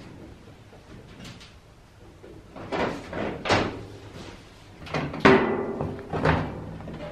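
A series of knocks and clunks on sheet metal as the galvanized stovepipe and the top of the sheet-metal wood stove are handled. They start about two and a half seconds in, and the loudest comes a little past five seconds.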